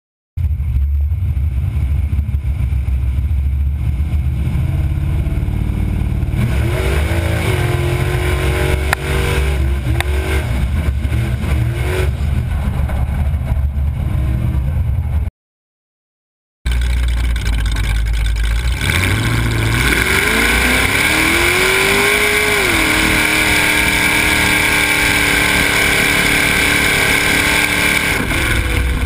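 A mud-racing truck's engine running loud with a heavy low rumble, revving up and down several times, then climbing and holding at high revs for several seconds. The sound cuts out completely for about a second around the middle.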